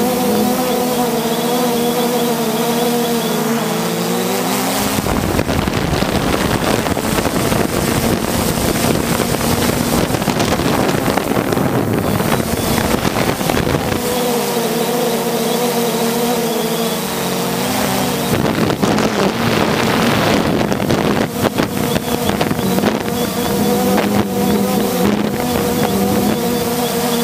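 3DR Solo quadcopter's motors and propellers droning, a steady, slightly wavering hum. For long stretches, from about 5 to 14 seconds in and again from about 18 seconds, wind rushing over the onboard microphone covers it.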